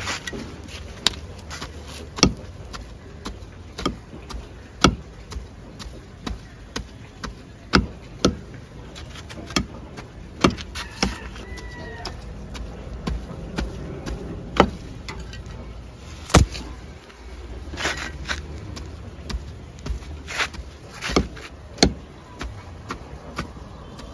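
Small metal hand trowel chopping and scraping into the packed soil of a mulberry tree's root ball, shaving off the excess soil: a run of sharp, irregular knocks, about one a second.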